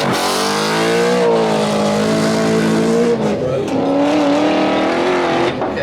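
Rally car engine revving hard under acceleration, its pitch climbing, dropping sharply at a gear change about three seconds in, then climbing again.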